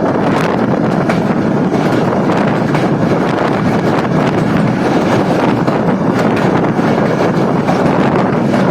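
Steady running noise of a moving passenger train, with wind buffeting the microphone and faint scattered knocks.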